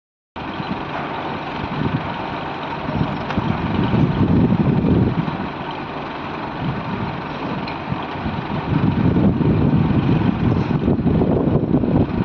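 Heavy construction machine's engine running continuously, growing louder for a moment around four seconds in and again for the last few seconds.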